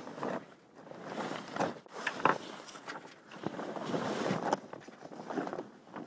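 Irregular rustling of fabric and sail bag brushing close against the microphone, with a few sharp knocks of handling.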